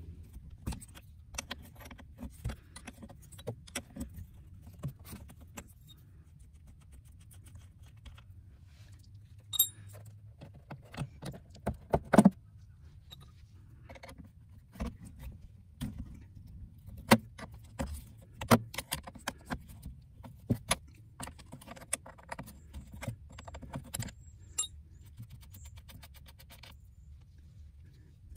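Steel combination wrench clinking and ticking on battery terminal nuts as they are worked loose: a long run of irregular light metallic clicks, with a few louder clanks.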